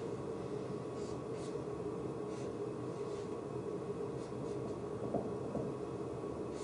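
Dry-erase marker scratching and squeaking on a whiteboard in a few short strokes, over a steady background hum.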